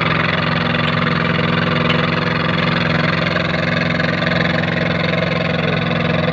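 Engine of a concrete kerb-forming machine running steadily at a constant speed.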